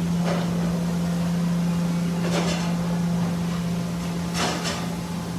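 Steady low mechanical hum, with a few brief rustling swishes of handling noise.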